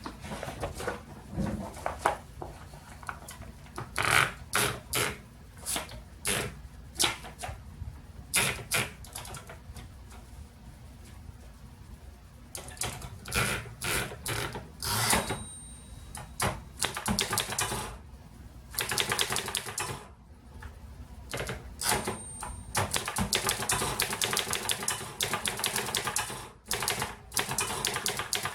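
A 1935 Erika Model S portable typewriter being typed on: irregular key strikes at first, becoming a fast, steady run of strikes in the last few seconds. Twice a brief high ring sounds, the carriage's margin bell.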